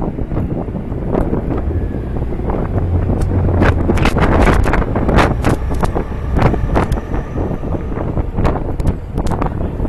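Wind buffeting the microphone over a steady low rumble of street traffic, with a cluster of sharp clicks and knocks in the middle.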